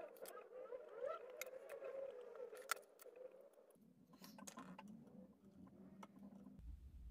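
Faint handling noise: scattered light clicks and taps as fingers and a wooden applicator stick work on a plastic lamp housing, spreading adhesive and pressing a small circuit board into place. A low hum starts near the end.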